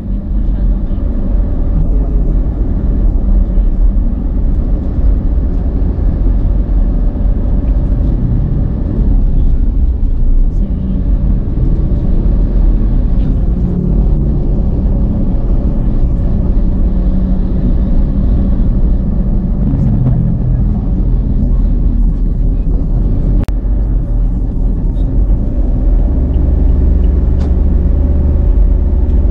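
Car driving along a road: a steady low rumble of engine and tyre noise, heard from inside the car.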